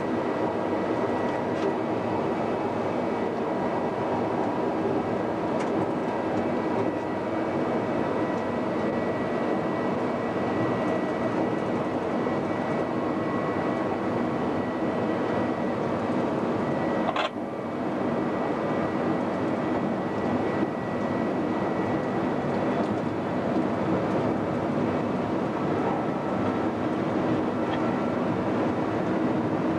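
Queensland Rail electric Tilt Train running at speed, heard from the driver's cab: a steady rumble and rush of running noise with a few faint steady tones above it. A brief click and momentary dip in the sound about seventeen seconds in.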